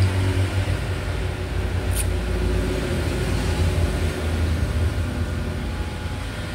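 Hot air rework gun blowing steadily, a continuous rush of air with a low hum, heating a MOSFET on a laptop motherboard to desolder it.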